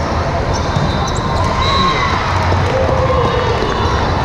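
Ambient noise of a large, echoing sports hall during volleyball play: many overlapping voices and shouts from players and spectators, with the thuds of volleyballs being hit.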